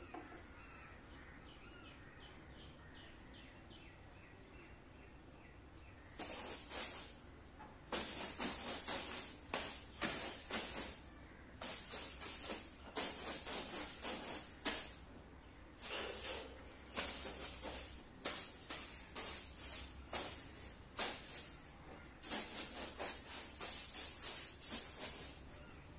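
Quiet room tone, then from about six seconds in a long run of short, dry swishing strokes, several a second in irregular runs with brief pauses. These are brushing and dusting strokes as a room is tidied by hand.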